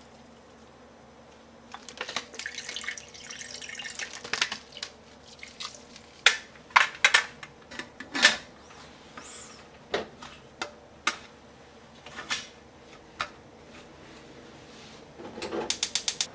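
Kitchen handling of a stainless steel pressure cooker. First there is a rustling scrape as sugar is spooned over the vegetables in the pot. Then come a series of separate sharp metal clicks and clacks as the lid is set on and locked, and near the end a quick run of rapid clicks.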